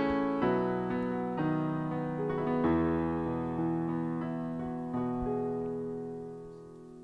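Piano playing slow, sustained chords, a new chord about every second, gradually fading out near the end.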